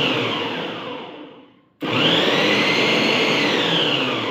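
Preethi Zodiac mixer grinder motor driving the food-processor jar in pulses, chopping vegetables fine. Its whine rises, falls away as the switch is released about a second and a half in, then it starts again straight away and runs down once more.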